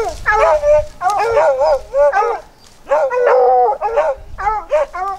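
Hog-hunting dogs barking and baying in quick repeated calls, about two a second, several voices overlapping around the middle: the bay of dogs that the hunters take to be holding a wild hog in thick brush.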